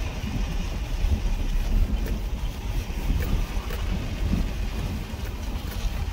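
Wind buffeting the microphone over the low, uneven rumble of a vehicle in motion.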